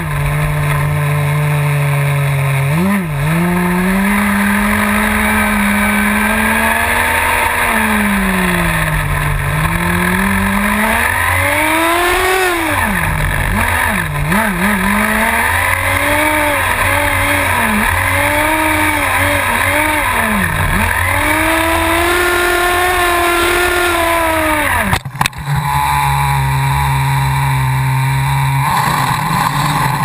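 Small nitro glow engine of a radio-controlled car, heard from a camera mounted on the car. It idles steadily, then revs up and down again and again as the car drives, its pitch rising and falling. Near the end there is a brief knock and a short dropout, and then it settles back to a steady idle.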